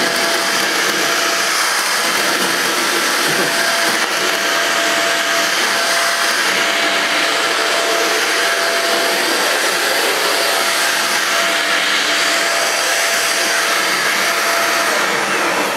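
Hoover Jovis 550-watt corded handheld vacuum cleaner running steadily and noisily, sucking up bits of cut paper. It starts to run down as it is switched off at the very end.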